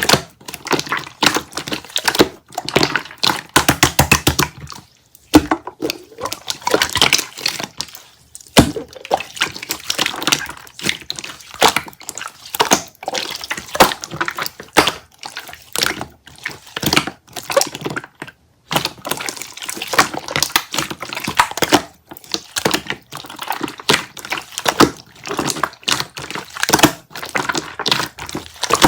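Hands squishing and mixing soft, wet slime, a fast run of sticky clicks and small pops that pauses briefly a few times.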